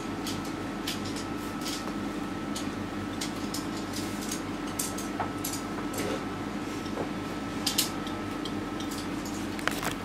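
Steel palette knife laying thick oil paint onto a canvas: irregular short scraping and tapping strokes, faint over a steady low hum in a small room.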